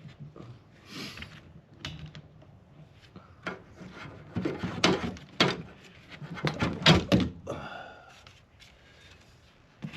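Hand tools clicking and knocking against metal while undoing a wiper arm's mounting, in a run of sharp knocks that is densest and loudest in the middle.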